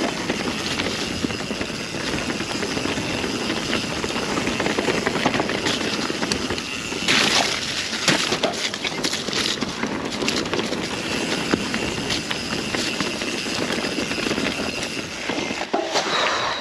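Mountain bike descending a dirt trail, heard from a camera on the rider: a steady rush of tyres on the ground with the bike rattling, and a louder burst of clattering about seven to eight seconds in.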